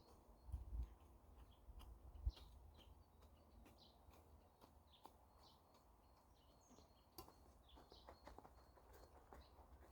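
Near silence outdoors, with faint chirps from small birds scattered throughout and a few soft low thumps in the first couple of seconds.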